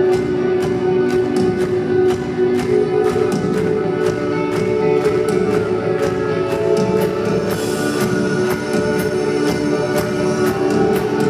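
Live rock band playing: held guitar chords over a steady drum beat of about two strokes a second.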